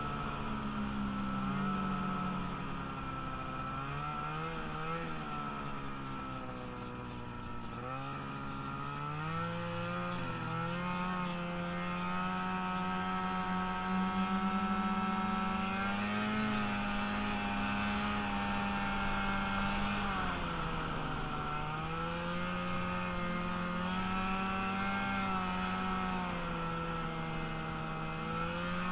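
Engine of a freshly rebuilt small vehicle running under way, its pitch rising and falling with the throttle. The pitch drops briefly about two-thirds of the way through and then picks up again.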